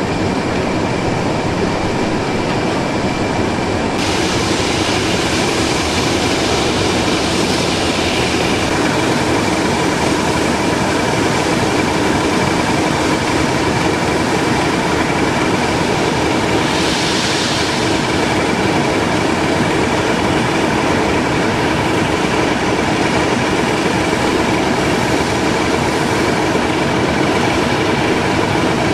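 Steam locomotive during shunting, its steam hissing steadily and loud, with a brief sharper hiss about 17 seconds in.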